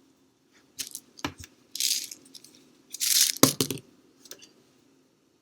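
Kitchen handling sounds: a few light clicks, two short rattling bursts, then a quick cluster of knocks.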